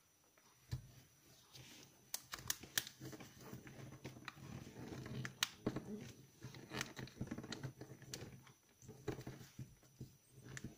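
Origami paper rustling and crinkling as it is folded and creased by hand. The sound is faint, with scattered sharp ticks and crackles, busiest between about two and eight seconds in.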